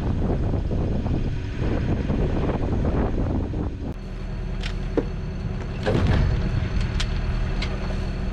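A sailing yacht's inboard engine running steadily under way, with heavy wind noise on the microphone in the first half. After a cut about halfway through, the wind eases and a few sharp knocks or clicks sound over the engine.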